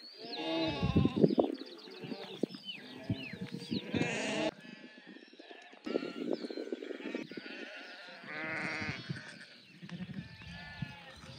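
A flock of sheep bleating, many calls overlapping and wavering in pitch, the loudest in the first second or so.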